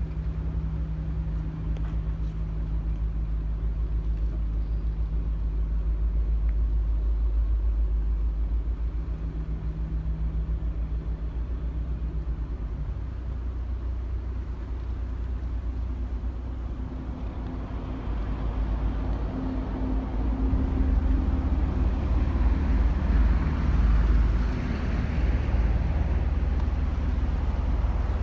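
Fishing boat's diesel engine running steadily as the boat comes alongside the quay. About two-thirds of the way through, the engine gets louder.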